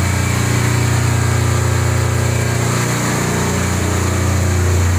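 Home generator set's small engine running steadily, just restarted after an oil change. Its note sags and wavers briefly about three seconds in, then steadies again.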